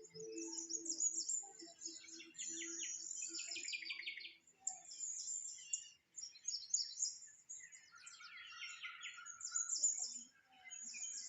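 Small birds chirping and twittering continuously, with bursts of fast trills.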